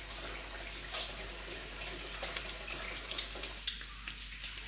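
Water running steadily from a kitchen tap as hands are washed under it, with a few small clicks and knocks.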